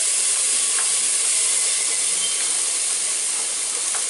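Minced ginger and garlic sizzling in very hot oil in a frying pan, a steady hiss. A couple of light ticks come from the wooden spatula scraping the last bits in from the bowl.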